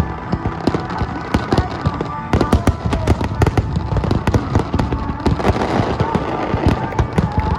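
Dense barrage of aerial fireworks shells bursting during a display finale: sharp bangs several times a second, overlapping without a break.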